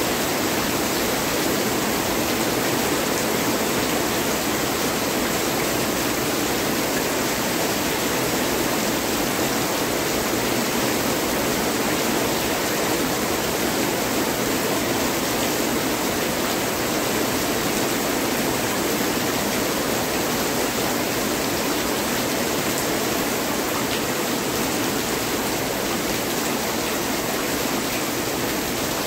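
Heavy rain pouring down in a steady, dense hiss, with no thunder claps.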